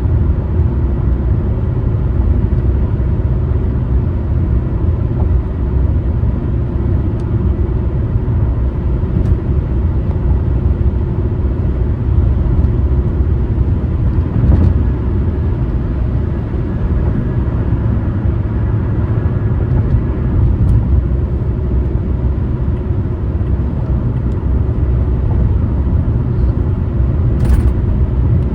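A car driving at road speed: a steady, loud low rumble of tyres and engine, with a few faint clicks and one sharper tick near the end.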